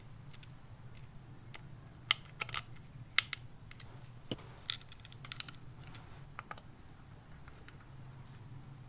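Light, sharp clicks and taps of plastic and small metal parts as an aftermarket switch panel is screwed into place, scattered through the middle few seconds, over a faint steady low hum.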